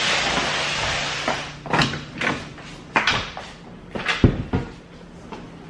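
Camera handling noise: fabric rubbing against the microphone, then a handful of sharp knocks and clatters, the loudest about four seconds in.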